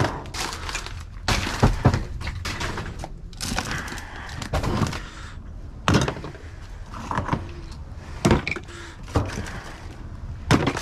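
Trash being rummaged through in a dumpster: irregular knocks and clatter as items, among them metal oil filters and plastic, are picked up, knocked together and dropped.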